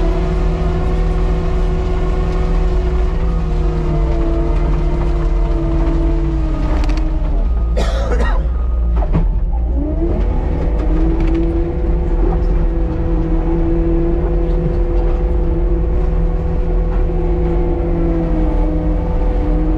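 Cat 299D3 compact track loader running hard under the operator's seat, a steady loud diesel drone with a whine on top as it drives over gravel. About seven seconds in the whine drops away for a couple of seconds with a few clanks, then climbs back up and holds steady again.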